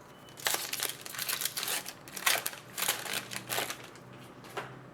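Hockey trading cards and pack wrappers being handled: a quick run of sharp crinkles and clicks, easing off about four seconds in, with one last click near the end.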